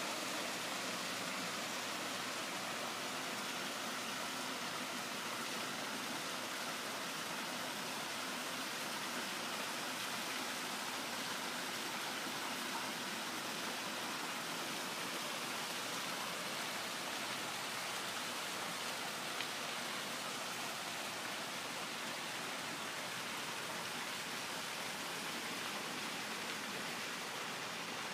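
Backyard pool waterfall running, water pouring steadily into the pool with an even rushing splash.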